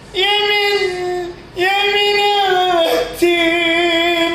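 A man singing a Turkish love song without accompaniment, holding three long, high notes with short breaths between them.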